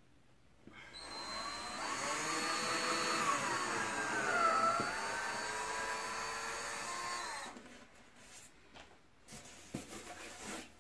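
Electric drill running for about seven seconds, boring cable holes in a foam incubator box, its pitch dipping midway and recovering before it stops. Then a few light handling knocks and rustles.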